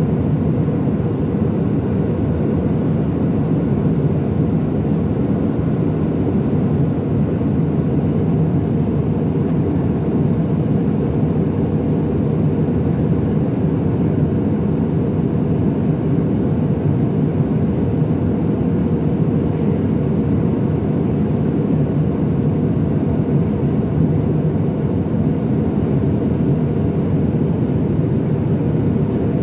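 Steady in-flight cabin noise of an Airbus A319-100 on approach, heard from a window seat over the wing: the jet engines and rushing airflow make an even, mostly low-pitched rumble with a fainter hiss above it, unchanging throughout.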